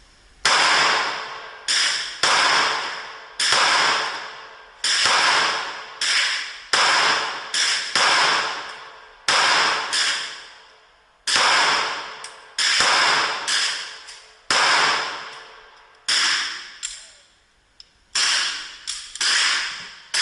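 Pistol gunshots: the shooter's XDM 9 Compact 9mm among them. About twenty shots come at irregular intervals, some in quick pairs, each with a long echoing tail.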